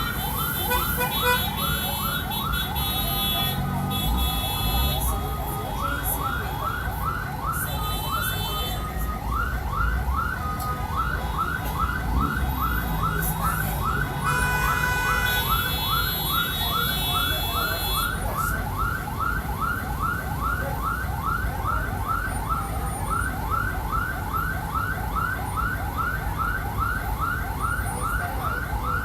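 Mercedes-Benz OF-1722 bus running, its low engine rumble under a steady electronic alarm-like chirp that rises in pitch and repeats about three times a second, with a few high whining tones coming and going.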